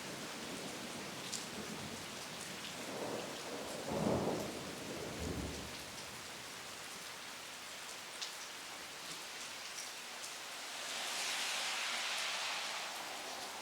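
Steady rain falling, with scattered drips, and a low rumble of thunder that swells about three seconds in, peaks around four seconds and fades by six. Near the end the rain's hiss swells for a couple of seconds.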